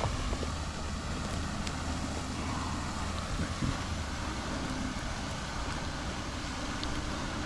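A steady low motor hum with light wind noise.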